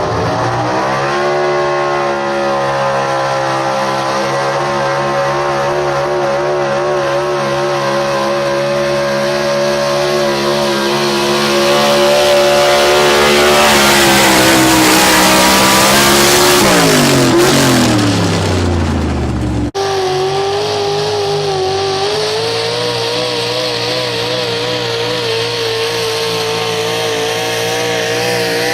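Super stock 4x4 pulling truck's engine held at high revs under load. The engine gets louder and rougher midway, then the revs fall steadily away about two-thirds through, before a sudden cut to another pulling truck's engine running at high revs.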